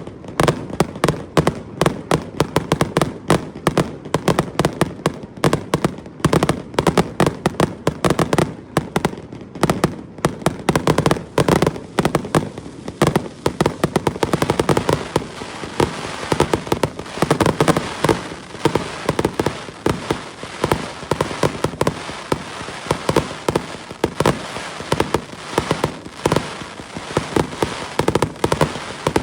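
Fireworks: a rapid, continuous barrage of bangs and cracks, with a crackling hiss thickening from about halfway through as the shells burst faster.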